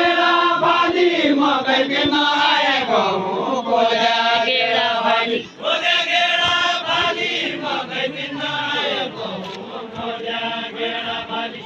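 Voices singing a Deuda song in a chant-like style, with long held notes that slide in pitch; the singing breaks off briefly about five and a half seconds in, then carries on.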